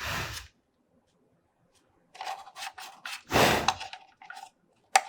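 Hard plastic drone parts and small tools being handled on a work surface: a series of clicks and clatters, with a louder knock at the start and another about three and a half seconds in.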